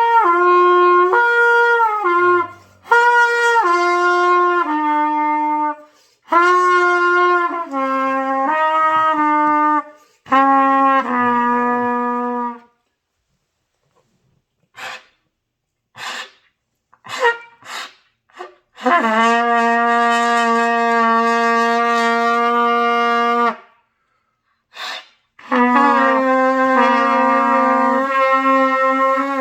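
Trumpet played in do-mi-sol practice: several short runs of notes stepping downward, then after a pause one long held low note, and more stepped notes near the end.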